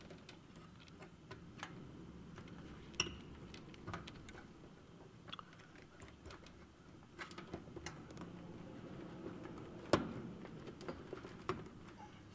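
Needle-nose pliers and spade connectors clicking and scraping against a contactor's terminals as thermostat wires are pushed on: scattered small ticks, with one sharper click about ten seconds in.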